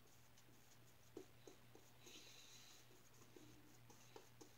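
Faint scratching of a 3D-printed injector razor's Schick blade cutting through lathered stubble, with a few soft clicks, over a low steady hum.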